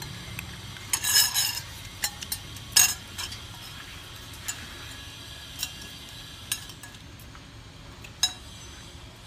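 Metal spoons clinking and scraping against ceramic plates while eating: a quick flurry of clinks about a second in, then single clinks every second or so.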